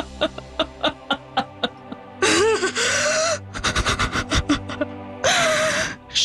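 A woman laughing in quick breathy pulses, with two longer gasping outbursts about two and five seconds in, over background music.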